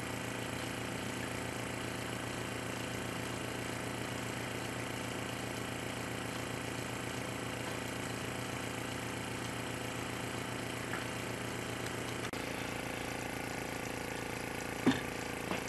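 Small electric air compressor of a Maxi-Vent well-water aeration system running with a steady, even hum, pumping air into the tank to build a head of air for oxidizing iron and odor. Two short knocks near the end.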